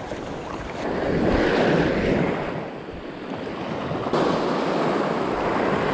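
Small waves washing in over sand in the shallows, swelling about a second in and again around four seconds, with wind on the microphone.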